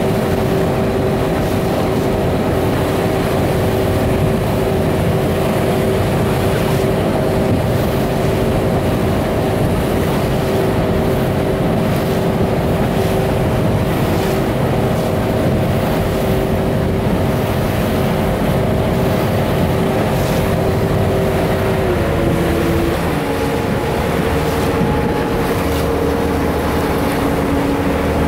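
Motorboat engine running steadily with a droning hum, its pitch stepping down about three-quarters of the way through as the engine slows.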